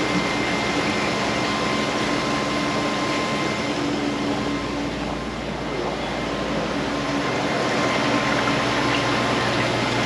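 Steady machine hum and hiss with faint steady whining tones over it.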